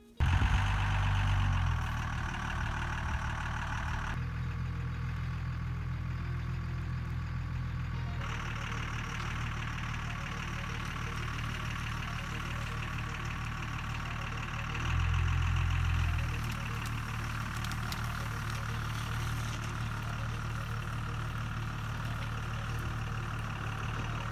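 Pickup truck engine running steadily at a low pitch, louder for a couple of seconds at the start and again about fifteen seconds in.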